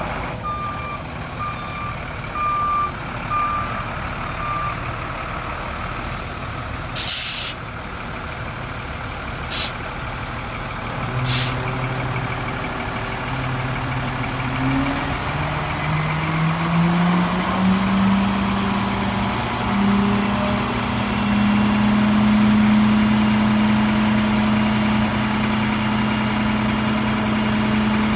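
Sterling Acterra dump truck: its reversing alarm beeps for the first few seconds, then three short air-brake hisses. After that the diesel engine speeds up, its hum rising in pitch in steps before settling into a steady, louder run near the end.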